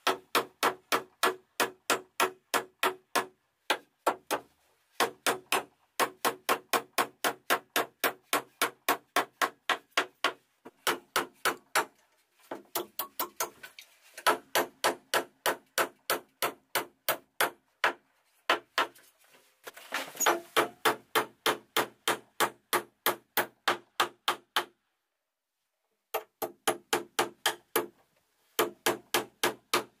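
Hammer driving nails into pine wall framing: quick, evenly spaced blows, about four or five a second, in runs of several seconds with short pauses between. Each blow rings.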